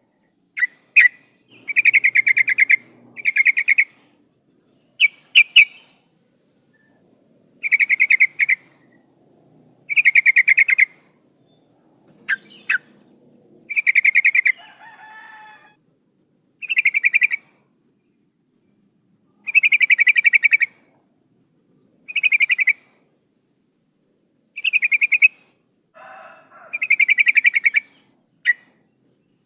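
Yellow-vented bulbul (trucukan) calls: short, rapidly pulsed phrases about a second long, repeated every two to three seconds, with a few fainter, lower notes between. Billed as a female in breeding condition calling to a male.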